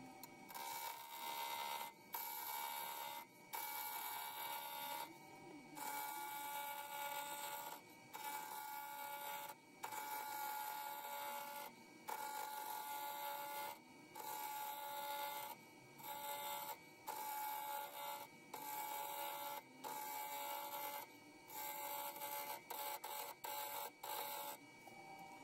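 Wood lathe running with a steady whine while a turning tool rounds a segmented bubinga and ash blank, cutting in repeated passes of about a second each with short breaks between them.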